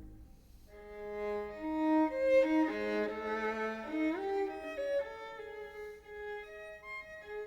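Recorded violin music playing through KEF Q300 loudspeakers: after a short near-silent pause, a bowed melody begins under a second in, moving through held and shifting notes with some notes sounding together.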